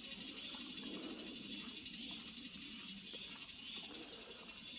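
Insects chirping in a high, fast, even pulse of several beats a second.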